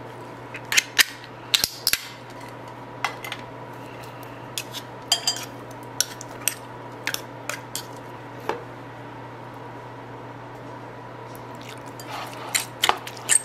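A metal fork clinking and scraping against a tuna can and a ceramic bowl in short, irregular clicks as canned tuna is forked out and stirred with mayonnaise. A steady low hum runs underneath.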